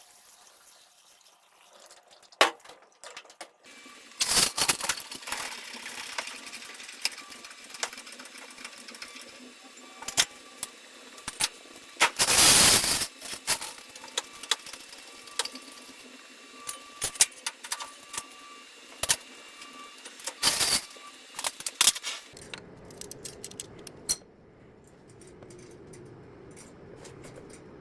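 Workshop handling noises: scattered metallic clicks, clanks and knocks of tools and parts being worked. A short, loud rush of noise comes about halfway through, and a steadier low hum sets in near the end.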